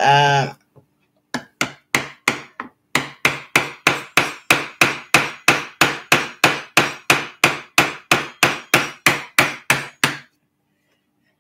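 Hammer striking the handle of a wood chisel in a steady rhythm, about three blows a second, chopping out a notch in a small block of wood. The blows stop about a second before the end.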